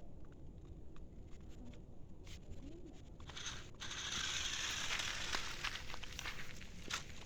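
Crackling, rustling noise with scattered clicks; a hiss swells up about three and a half seconds in and stays louder.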